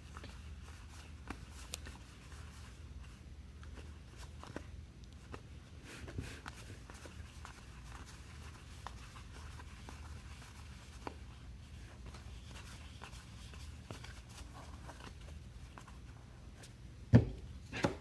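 Soft handling of trading cards and foil packs: faint scattered rustles and small clicks over a steady low hum, with one louder knock about a second before the end.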